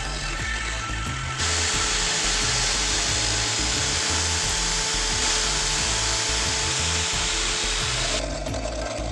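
An electric power tool runs steadily, starting about a second and a half in and stopping near the end. It plays over background music with a steady bass beat.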